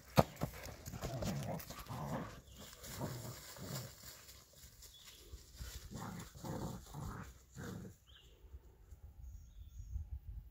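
Two young German shepherd dogs play-growling as they tussle over a ball, a string of short irregular bursts that die away about eight seconds in.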